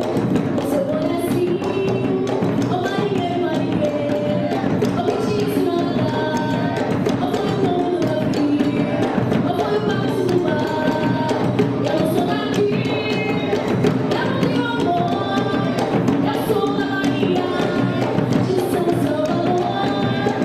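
Samba de roda: singing voices carrying a melody over a steady, driving beat of percussion.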